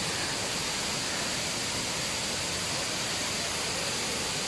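Waterfall in strong flow: a steady, even rush of falling water.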